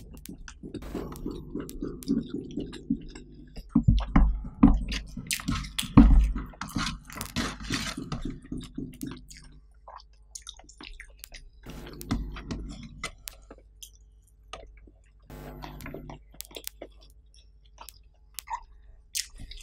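Close-miked chewing with the mouth closed: wet mouth sounds of a person eating a rice meal by hand. It comes in several bouts with short pauses between them, and a few sharp clicks stand out around four and six seconds in.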